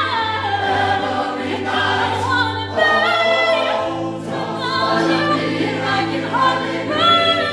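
Show choir singing full, held chords led by a solo female voice, over steady low bass notes that change pitch a few times.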